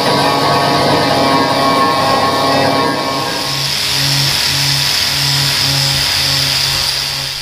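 DeWalt angle grinder running under load: first grinding down tack welds along a freshly welded steel seam, then, from about halfway, sanding paint and filler off a steel door panel. Background music with a steady beat plays over it.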